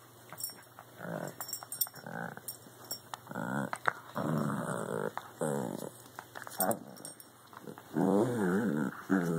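Two small dogs growling at each other as they play-fight over a toy. A string of short, wavering growls comes with a few clicks, and the growls get longer and louder near the end.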